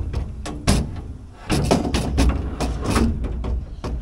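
Metal canopy drawer being worked on its slide runners: a sharp knock near the start, then a clattering rattle of the runners and metal frame through the middle.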